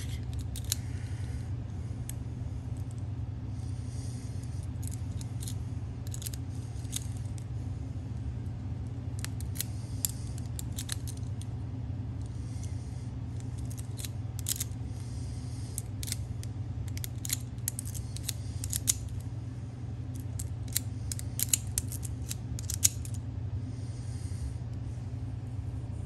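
Flat steel key being turned back and forth in a small antique brass lever lock, giving irregular small metallic clicks and scrapes as the levers and bolt move, over a steady low hum.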